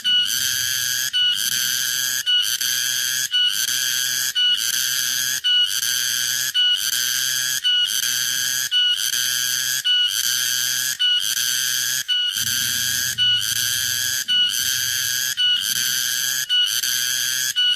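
Cicada (tonggeret, garengpung) singing a loud, shrill, steady buzz. It is broken by a short dip about once a second.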